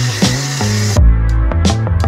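Background music with a steady beat and bass line. For about the first second, a dense hiss of pressure-washer snow foam spraying runs under it, then cuts off abruptly.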